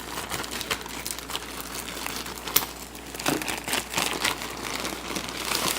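Packaging being handled and opened by hand: irregular crinkling and crackling of wrapping, with scattered sharp crackles.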